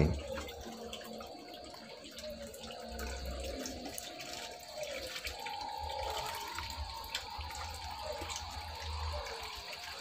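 Water running or trickling steadily, with a few faint clicks.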